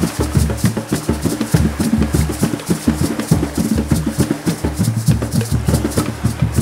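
Background music with a steady beat: bass and drums, with light percussion ticking regularly above.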